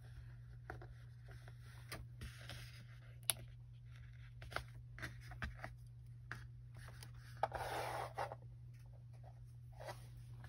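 Fabric being handled: soft rustling and scraping with scattered small clicks, and a longer rustle about seven and a half seconds in, over a faint steady hum.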